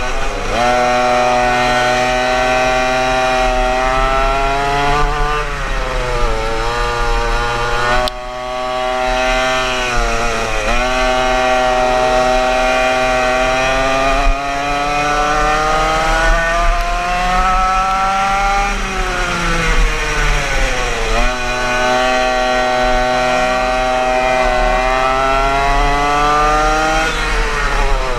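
Yamaha KT100 100cc two-stroke kart engine at speed, its pitch climbing steadily for several seconds down each straight and dropping sharply into each corner, about six times over.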